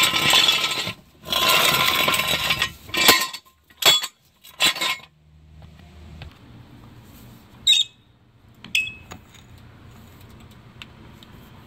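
Steel jack stands being pulled out from under a car: metal scraping and clattering for a couple of seconds, then several short metal clanks. Two ringing metal clinks follow about eight and nine seconds in.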